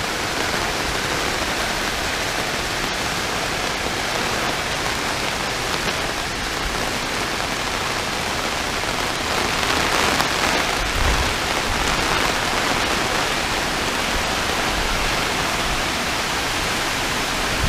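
Heavy tropical-storm rain falling steadily, with gusty wind; about ten seconds in a gust swells louder, with a low rumble of wind on the microphone.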